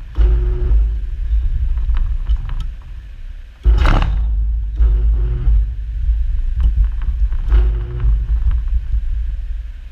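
Hydrostatic pressure-test pump working as it pressurises a water bottle with water: a steady low rumble with a stroke that repeats about every two and a half seconds. A loud, brief rush of noise comes about four seconds in.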